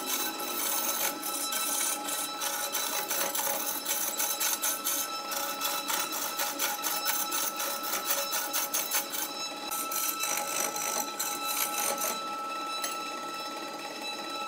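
Wood lathe running with a hand-held turning tool cutting into a large spinning wooden block: a rapid, steady scraping chatter over the machine's constant whine. The cutting stops about twelve seconds in, leaving the lathe spinning freely.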